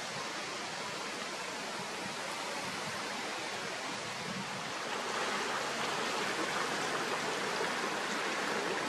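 Steady wind and rushing water over a choppy river: an even hiss with no clear engine or other distinct sound, getting a little louder about five seconds in.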